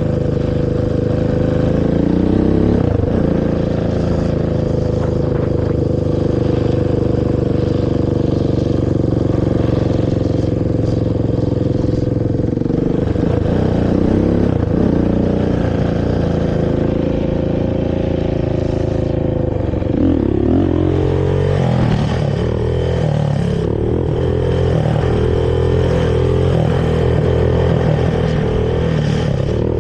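Honda TRX450R quad's single-cylinder four-stroke engine through its stock exhaust, running under way. The engine holds a steady pitch for long stretches, changes revs briefly near 3 seconds and again around 13 to 15 seconds, then revs up and drops repeatedly from about 20 seconds in.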